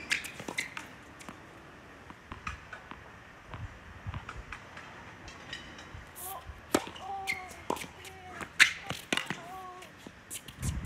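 Tennis balls struck by rackets and bouncing on a hard court during play: a series of sharp pops and knocks, irregularly spaced, the loudest a little past halfway.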